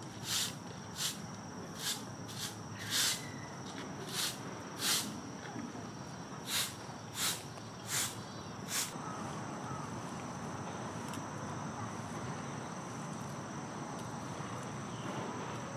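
Steady high-pitched insect drone, with about a dozen short, sharp hisses at irregular spacing over the first nine seconds, then only the drone and background noise.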